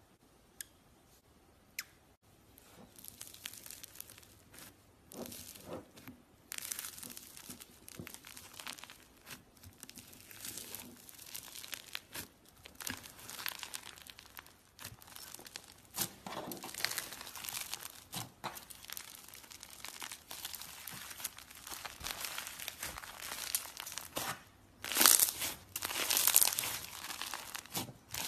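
Slime being squished and stretched by hand, giving a dense crackling, popping and sticky tearing sound with louder surges, the loudest near the end. It starts about two seconds in, after a couple of faint clicks.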